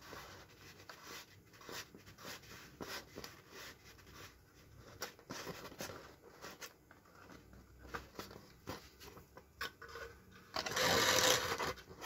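Small clicks and light scraping as metal tweezers and fingers handle the lead wires at the centre of a speaker cone, with a louder rustling scrape lasting about a second near the end.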